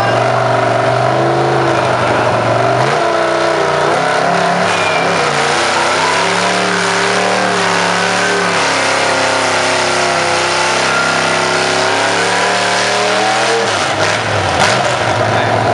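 Modified Massey-Harris 30 tractor engine, rated at 485 hp, running hard under load while pulling the sled. Its pitch climbs a few seconds in, wavers up and down, then drops near the end as the pull winds down.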